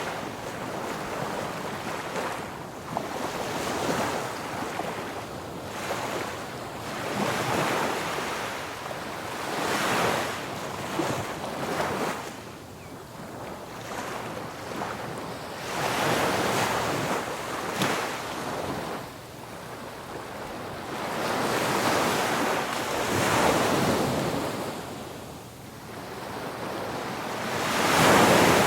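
Ocean waves breaking on a beach, the surf swelling and ebbing every few seconds, with the loudest wave breaking near the end.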